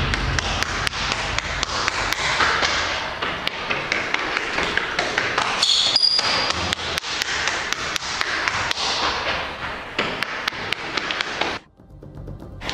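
Running footsteps on hard stair steps: a quick, irregular run of taps and thuds, with a brief high squeak about six seconds in. The steps cut off suddenly near the end.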